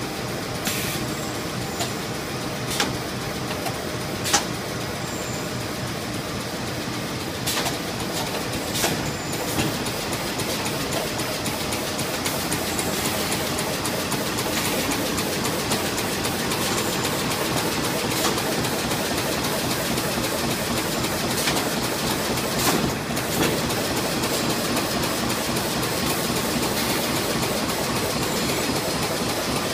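Plastic bag making machines running: a steady mechanical clatter and hum, with a sharp click or knock every few seconds.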